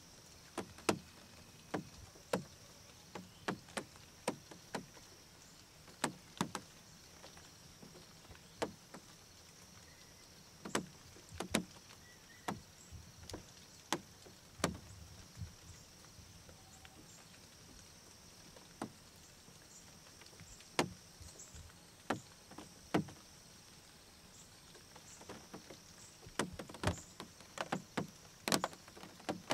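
Irregular sharp clicks and knocks, some in quick clusters, over a steady high insect drone.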